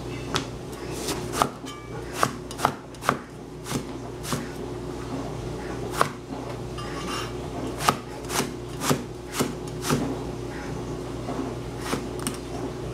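Large cleaver chopping eggplant on a thin plastic cutting board: irregular sharp knocks as the blade cuts through and strikes the board.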